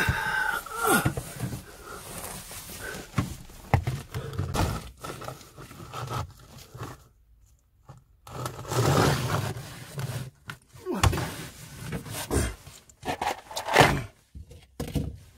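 Irregular scraping, rustling and knocks of someone crawling and shifting about in a cramped loft, handling cables and a bag of supplies, with a short lull about seven seconds in.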